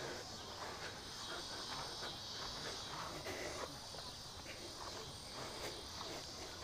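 Faint, steady high-pitched chirring of an insect chorus, with a few soft ticks scattered through it.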